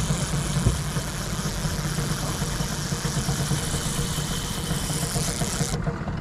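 Boat motor idling steadily with a low hum, under a high hiss that cuts off suddenly near the end.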